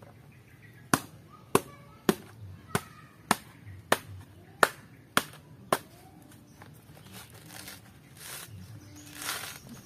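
A hand-held tool struck against a coconut's fibrous husk nine times in a steady rhythm, about one sharp hit every 0.6 seconds, as the husk is split loose. From about seven seconds in, rustling and tearing as the husk fibres are pulled away.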